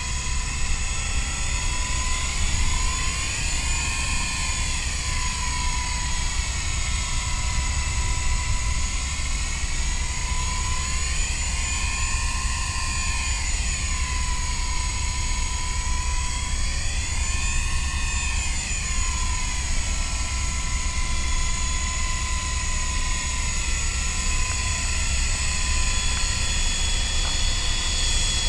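MJX F45 RC helicopter's electric motor and rotor in flight: a steady whine that swells and sinks in pitch several times as the throttle and distance change.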